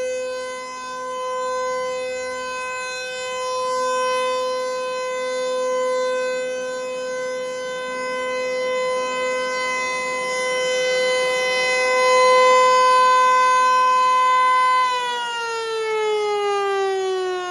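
Federal Signal 508-128 dual-tone rotating electromechanical outdoor warning siren sounding its steady full-alert tone, swelling and fading in loudness every few seconds as the rotor turns toward and away. About fifteen seconds in it cuts power and begins winding down, the pitch falling steadily at the end of the alert.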